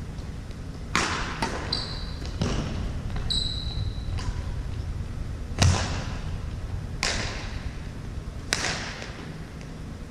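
Badminton rally: racquets hitting the shuttlecock, sharp smacks about every one to one and a half seconds, the loudest about halfway through, echoing in a large gym. Sneakers squeak briefly on the hardwood floor twice in the first four seconds.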